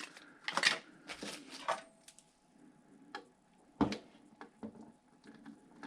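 Scattered light clicks, taps and soft rustles of small computer parts and a screwdriver being handled, with a few sharper clicks.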